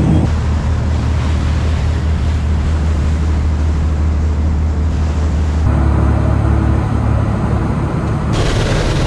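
Commercial lobster boat's engine running under way with a steady low drone, over the rush of wake and wind noise. The sound changes abruptly about two-thirds of the way in and again near the end.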